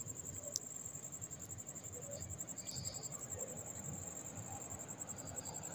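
Faint, steady high-pitched trill of a cricket, with a single light click about half a second in.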